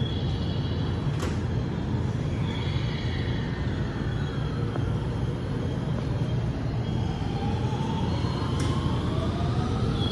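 Steady low rumble of trains, with a JR West 223 series electric multiple unit setting off: from about seven seconds in, its motors whine, several tones rising together in pitch as it accelerates.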